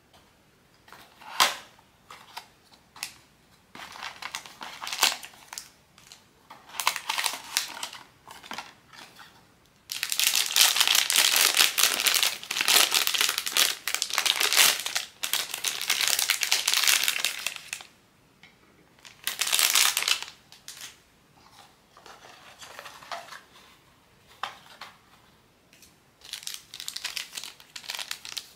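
Blind-box packaging being handled and opened by hand: crinkling and rustling in short bursts with a few sharp clicks, dense and continuous for several seconds in the middle, then sporadic again.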